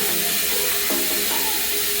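Background music: a melody of held notes changing every half second or so, over a steady hiss.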